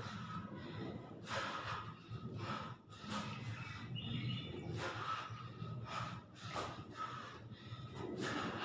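A man breathing hard from exertion during a push-up workout: short, forceful huffs of breath about one or two a second, unevenly spaced.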